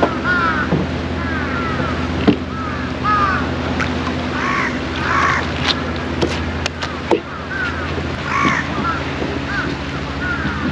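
Birds calling over and over with short, harsh rising-and-falling cries, over a steady low motor hum and a few sharp clicks.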